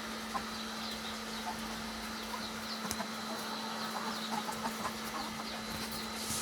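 Chickens clucking in short scattered calls with frequent short high peeps, over a steady low hum.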